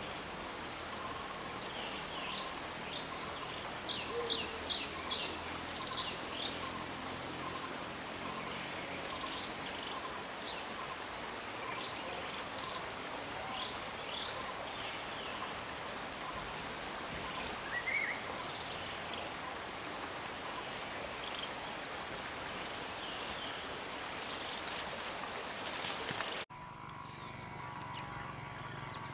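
Steady high-pitched drone of an insect chorus in dry forest, with short bird chirps over it. The drone cuts off suddenly near the end, leaving a quieter open-air background.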